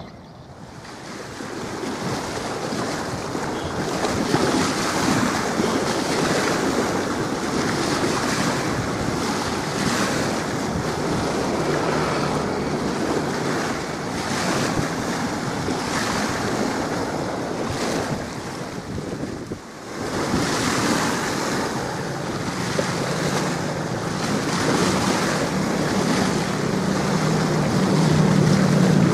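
Strong wind buffeting the microphone, with waves washing in, in uneven gusts. It drops away briefly about two-thirds of the way through, and a low steady hum then joins in.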